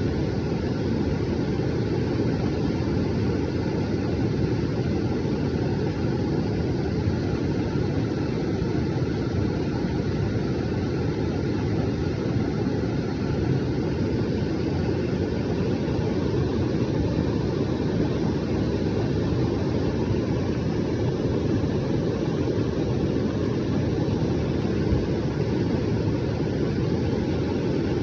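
Flash-flood water rushing in a torrent: a steady, loud rushing noise, heaviest in the low range, with no breaks.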